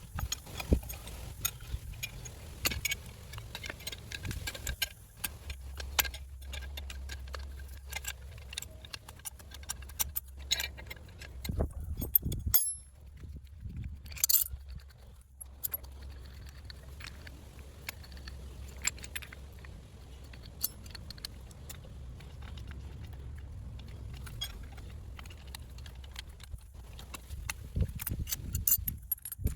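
Metal tools and car parts clinking and knocking in scattered, irregular strikes during a front hub bearing replacement, over a low steady hum.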